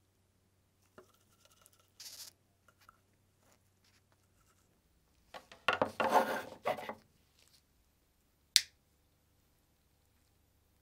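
Faint tabletop handling taps, then about a second and a half of scraping and rubbing as a UV LED lamp panel is set down and pushed into place, and one sharp click about a second and a half later.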